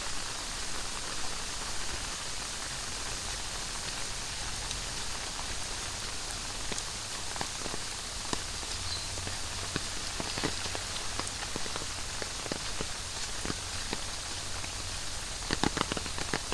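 Heavy tropical rain falling steadily, an even hiss. Close drips and taps land here and there from about halfway through, with a quick cluster of louder taps near the end.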